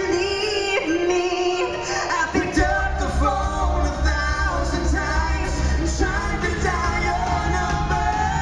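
Live amplified pop-country ballad: a male and a female singer duet over a band, with the man singing out strongly in the middle. A full low bass and rhythm section comes in about two and a half seconds in.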